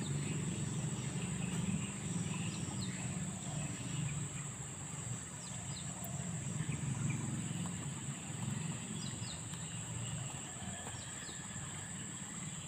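Outdoor riverside ambience: a steady low rumble under a constant high-pitched insect drone, with a few brief bird chirps scattered through.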